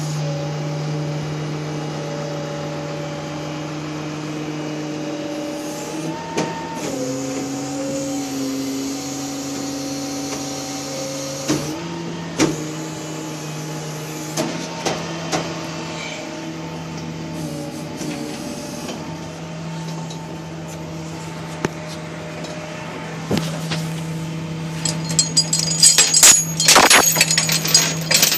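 A steady mechanical hum runs throughout and shifts pitch twice. In the last few seconds, steel tow chains and J-hooks rattle and clank rapidly as they are handled.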